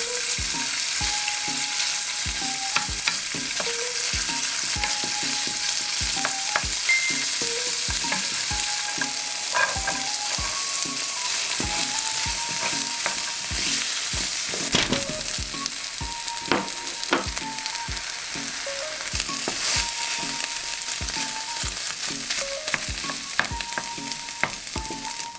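Diced chicken, vegetables and rice stir-frying in a stone-coated frying pan with a steady sizzle, while a wooden spatula scrapes and taps against the pan in short, irregular clicks.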